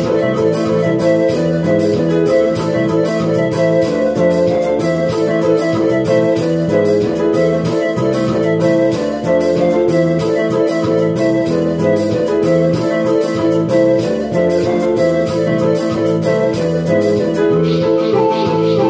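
Portable electronic keyboard playing sustained organ-like chords over a steady beat of evenly spaced high ticks. Near the end the beat's high ticking gives way to a brighter hiss.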